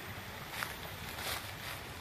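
Dry leaves and undergrowth rustling as someone pushes through brush, with sharper crackles about half a second and a second and a quarter in, over a steady rushing background.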